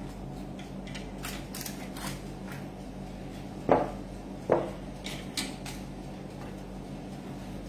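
Kitchen handling sounds: light paper crinkles and clicks, and two dull knocks about a second apart near the middle, over a steady low hum.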